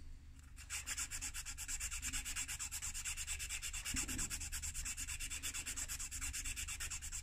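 Strip of sandpaper rubbing against an ebonite pipe stem spinning in a lathe chuck: an even, rapid rasping pulse of about eight strokes a second as the mouthpiece is shaped.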